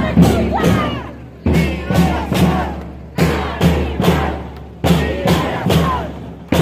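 Marching bass drum and percussion beating a repeating rhythm, groups of about three hits roughly every second and a half, with crowd voices calling out over it.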